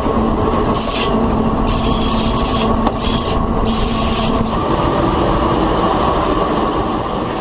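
Indian Railways train wheels running on the rails: a loud, steady rumble with harsh rasping hisses breaking in three times in the first half.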